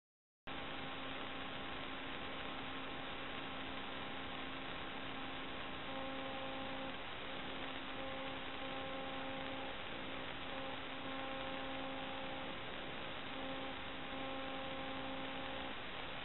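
Steady electrical hiss and hum with no other sound, starting abruptly about half a second in. A few steady tones sit in the hum, and some of the higher ones drop in and out in the second half.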